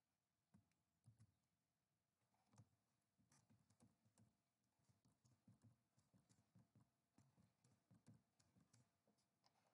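Very faint computer-keyboard typing: scattered, irregular soft key taps over near silence.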